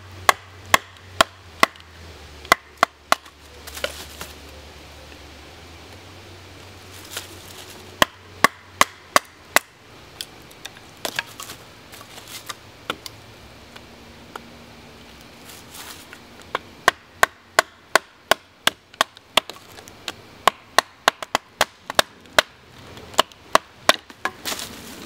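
Batoning: a baton striking the spine of a Farson hatchet, driving its blade down through a small upright stick of wood. Sharp knocks come in several runs of about two to three a second, with pauses between, until the stick splits near the end.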